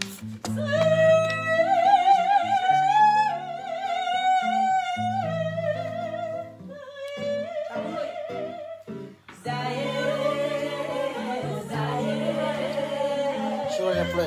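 Music with a solo voice singing long notes with wide vibrato over held low accompaniment notes. After a short break about nine seconds in, it comes back fuller, with the voice still singing.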